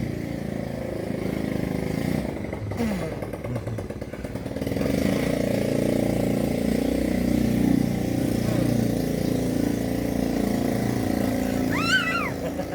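Motorcycle engine running nearby, its pitch shifting up and down and getting louder about five seconds in. A brief high-pitched call sounds near the end.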